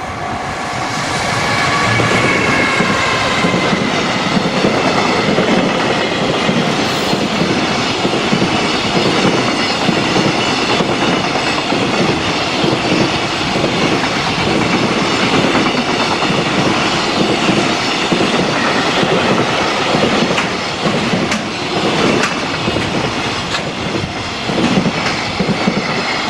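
Freight train passing close by over a level crossing, its wheels clacking over the rail joints in a steady run of beats, rising to full loudness within about two seconds. A high whine drops slightly in pitch in the first few seconds, and the crossing's warning bell is heard at the very start and again near the end.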